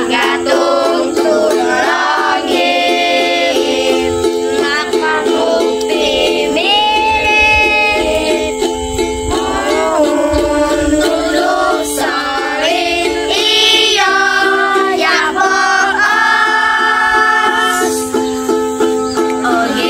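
Children singing a song to a strummed ukulele, the sung melody carried over a steady, evenly repeating strum.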